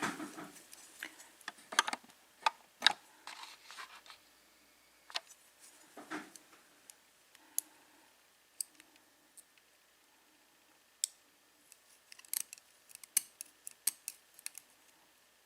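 Small, irregular metal clicks and scrapes from a disassembled American Lock 5200-series padlock being handled as its plug is worked out of the body, with a cluster of sharper clicks near the end.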